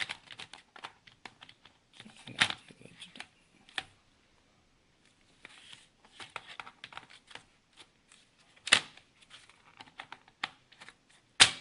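Plastic clicks, taps and scrapes of a laptop's case and battery being handled and refitted, with three louder sharp snaps: about two seconds in, near nine seconds, and near the end.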